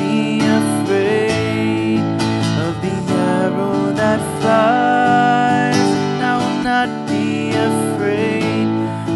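Steel-string acoustic guitar strummed steadily in chords, with a man's voice singing over it.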